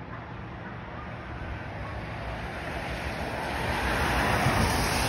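A vehicle passing on the road: tyre and road noise swells to a peak near the end, then begins to fade.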